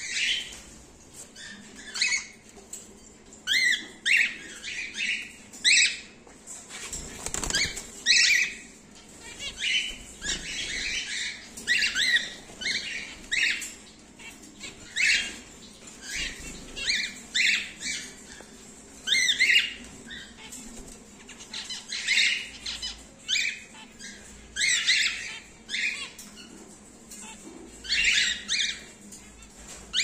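Cockatiels calling again and again with short, sharp chirps, with a burst of wing flapping about a quarter of the way in.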